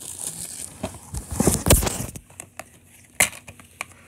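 Handling noise: rustling and clicks of objects being moved by hand. There is a heavy thump with rustling about halfway through and a single sharp click about three seconds in.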